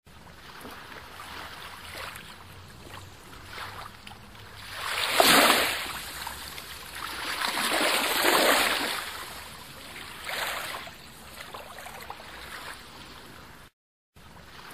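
A rushing, surf-like noise that swells and fades, loudest about five seconds in and again around eight seconds, with a smaller swell later; it cuts out for a moment near the end.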